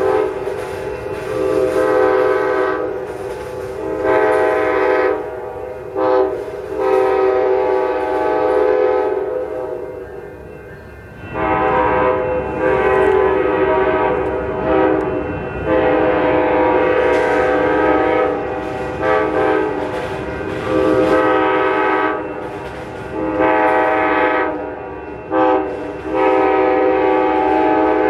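Amtrak diesel locomotive's multi-note air horn sounding a long run of long blasts with short breaks, pausing briefly near the middle, as the train runs down the street. The locomotive's diesel rumble comes in under the horn in the second half.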